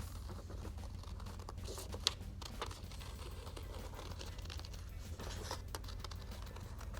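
Scissors snipping through a folded sheet of brown paper, with paper rustling and crinkling as it is turned, and one sharper snip about two seconds in.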